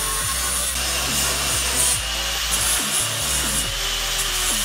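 Angle grinder running against the steel of a circular saw blade: a high steady whine over a grinding hiss. Electronic background music with a pulsing bass plays underneath.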